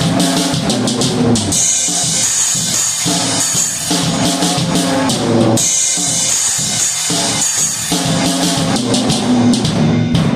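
Drum kit played with a single drumstick, keeping a steady beat over recorded backing music.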